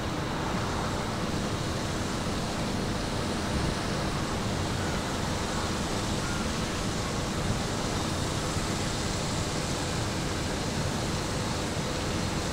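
Automatic train washer spraying water over an E5 series Shinkansen: a steady rushing noise.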